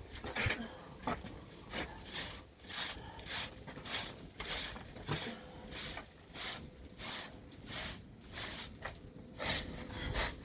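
Footsteps crunching through snow at a steady walking pace, about one and a half steps a second, with a few uneven steps in the first couple of seconds.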